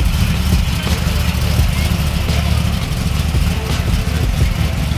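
A car engine idling: a steady low rumble that does not rise or fall, with voices in the background.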